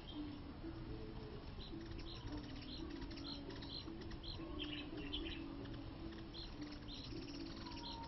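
Small birds giving short high chirps, in clusters of several, over the low, repeated cooing of a dove.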